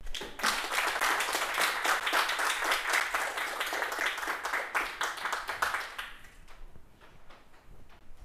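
Audience applauding, a dense patter of many hands clapping that sets in at once, then fades out about six seconds in.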